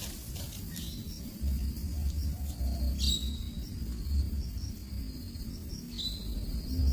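Two short, sharp bird chirps about three seconds apart over a steady high insect drone, with low wind rumble on the microphone.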